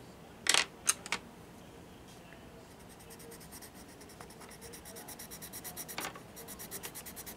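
A colorless blender pencil rubbing over a layer of blue colored pencil on sketchbook paper, a rhythmic scratching of about six strokes a second that starts a little under three seconds in and grows louder. It is preceded by a few sharp clicks in the first second.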